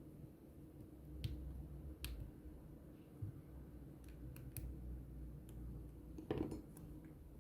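Scattered small clicks and taps of handling a smartphone and a small screwdriver on a work mat, with a denser clatter about six seconds in, over a faint low hum.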